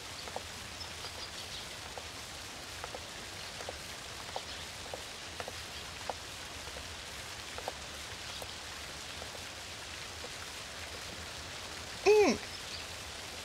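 Steady spatter of falling water with scattered small drips. About twelve seconds in, a short voice-like sound rises and falls in pitch.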